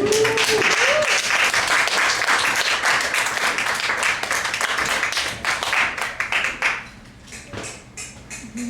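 Audience applauding, the clapping thinning out to a few scattered claps about seven seconds in.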